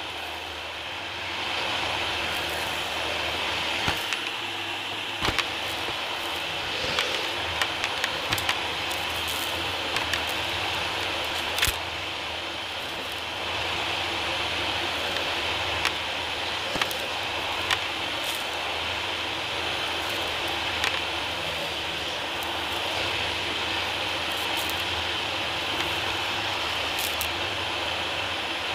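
Dyson DC40 upright vacuum cleaner running steadily over a hard floor, with scattered sharp clicks and crackles as bits of grit and debris are sucked up.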